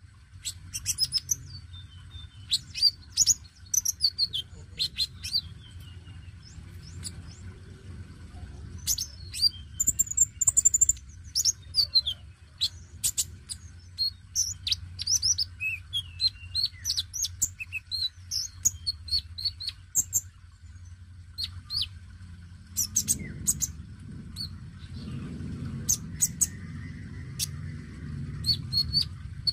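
Male Van Hasselt's sunbird (konin) singing: a fast, unbroken run of high, thin chirps and twittering trills, over a low background rumble that rises about two-thirds of the way through.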